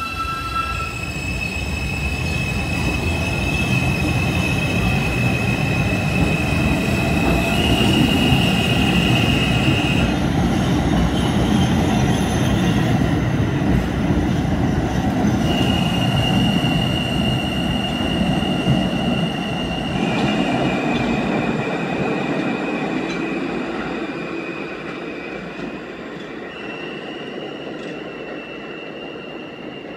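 New York City subway train passing, its rumble building and then fading near the end, with the steel wheels squealing in long steady high-pitched tones that change pitch several times.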